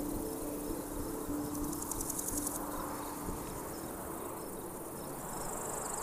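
Insects trilling: a high-pitched, fast-pulsing chirr that swells around two seconds in, fades, and comes back steadily near the end.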